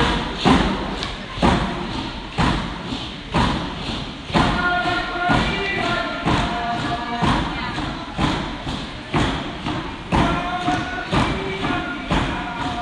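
Northwest Coast Native dance song: hand drums beat a steady pulse of about two beats a second, alternating strong and lighter, under a group of voices singing.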